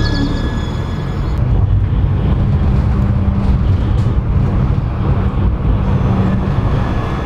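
A low-floor tram running on its track, then, from about a second and a half in, the ride heard from inside the moving tram: a steady rumble of the wheels on the rails with a low hum.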